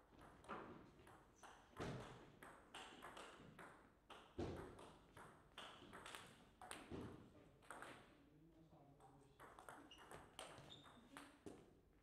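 Table tennis ball strikes: repeated sharp pings of the plastic ball hitting bats and the table, roughly two a second, at an even pace.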